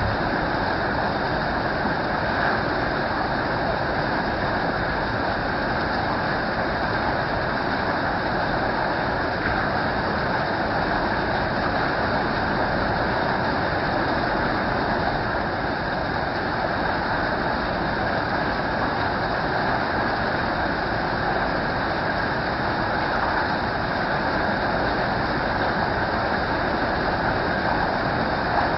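Steady rain, an even rushing hiss that doesn't change.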